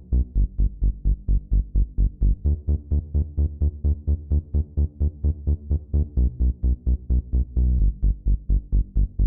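Electronic dance music with a steady pulsing beat of about four beats a second over a deep bass line.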